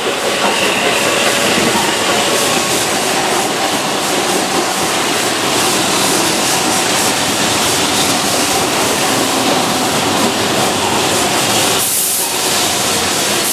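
Keihan electric commuter train running past close by: a steady, loud noise of wheels on rails and running gear.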